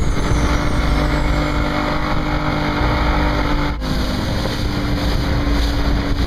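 Motorboat engine running steadily under heavy wind buffeting on the microphone, with a brief break about two-thirds of the way through.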